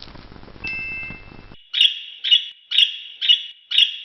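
Electronic sound machine playing a short steady beep, then a run of six chirps, about two a second.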